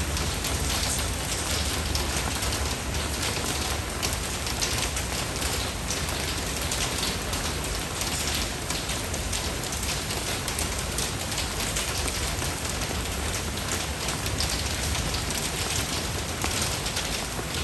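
Steady rain falling on a surface, with many individual drops ticking through a constant hiss.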